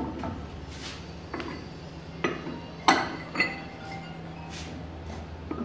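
Steel harmonic balancer parts clinking against each other and the arbor press as they are set in place: about half a dozen sharp metal clinks, the loudest near the middle ringing briefly, over a steady low hum.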